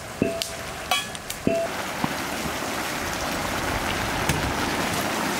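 Raw jackfruit pieces sizzling in a large steaming steel pan, a steady hiss that grows louder about a second and a half in. Near the start a steel plate knocks twice against the pan with a short metallic ring as turmeric powder is tipped in.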